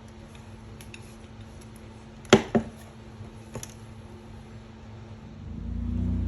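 Two sharp clacks about a quarter second apart, hard objects knocking together as they are handled, with a few lighter clicks after. Near the end a low rumble swells up.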